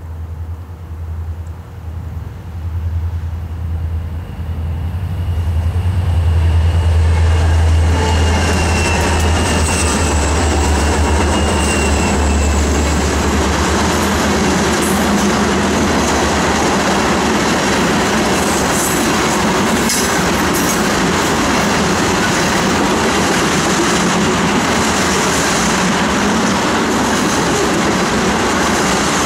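Diesel locomotives of a freight train approaching and passing with a deep engine drone that builds over the first several seconds. Then a string of tank cars rolls by with steady wheel-on-rail noise, a faint high wheel squeal about eight seconds in, and a few clanks.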